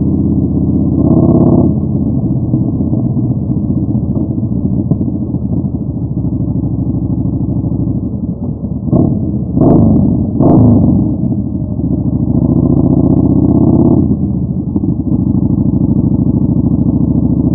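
Yamaha Bolt's air-cooled V-twin running through a Vance & Hines Twin Slash staggered exhaust while riding. There are three short blips of the throttle about nine to eleven seconds in, then a longer pull on the throttle from about twelve to fourteen seconds before it eases off.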